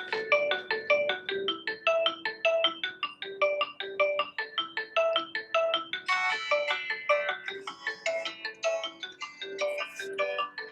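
Redmi 5 smartphone's loudspeaker playing a built-in ringtone: a quick melody of short notes, growing fuller with added higher notes about six seconds in.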